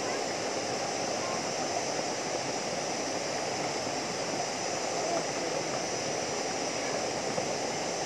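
Steady rush of water from a small waterfall spilling into a rock pool, with faint voices under it.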